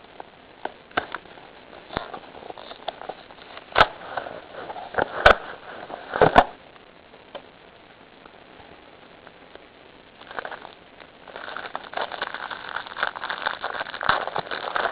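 A trading-card hanger box being opened by hand. There are scattered clicks, then three loud sharp snaps between about four and six and a half seconds in. After a short lull, continuous crinkling of the packaging starts at about ten seconds.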